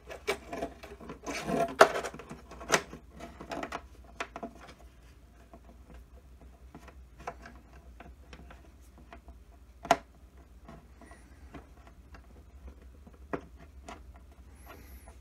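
Handling noise from a DeArmond Rhythm Chief pickup's cable and its small thumbwheel control unit being worked into an archtop guitar's f-hole: scattered clicks, taps and rubbing, busiest in the first few seconds. A sharper knock comes about ten seconds in.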